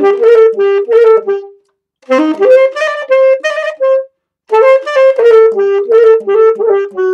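Solo saxophone playing a manele melody in three short phrases separated by brief pauses, with quick ornamented runs and held notes.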